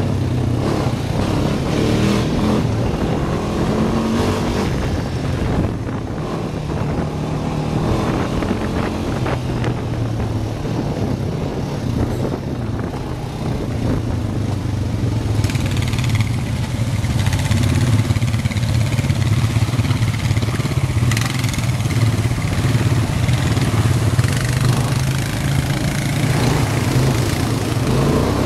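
ATV engine running steadily while riding, with a rushing wind-and-terrain noise that grows louder about halfway through.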